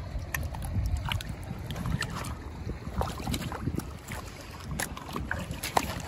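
Splashing in shallow water as gloved hands grab and lift silver pomfret, with many short, sharp splashes and slaps scattered throughout. A low wind rumble on the microphone runs underneath.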